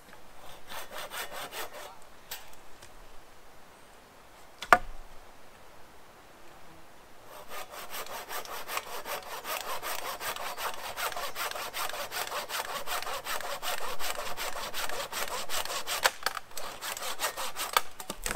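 Hand saw cutting through wood in quick, even back-and-forth strokes: a short bout at the start, then a long steady run with a brief pause near the end. A single sharp knock comes a little before the long run.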